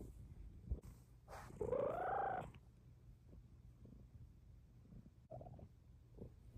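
Bengal kitten purring steadily under a blanket while being petted. About a second and a half in, one short call rises and falls in pitch over it.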